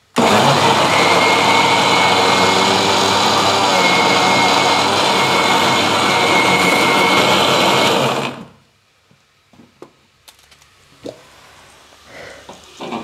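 Electric mixer grinder (mixie) running at full speed for about eight seconds, pureeing ripe bananas into a paste in its steel jar, with a steady whine over the rush of the motor, then switching off. A few light clicks and knocks follow as the jar is taken off the base.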